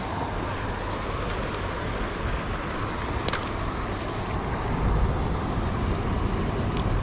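Steady rush of flowing river water, with a low rumble that grows stronger about five seconds in and a single faint click a little past three seconds.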